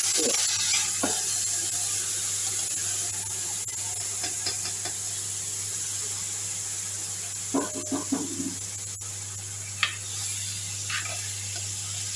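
Blended pepper, onion and ginger purée poured into a pot of frying egusi (ground melon seed), setting off a loud, steady sizzle that starts at once and slowly eases. A few spoon scrapes and clinks against the stainless steel pot come around the middle and later.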